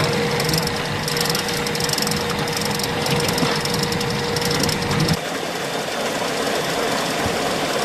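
A machine with a motor running steadily, with a rapid rattling; its sound changes abruptly about five seconds in, losing a steady hum.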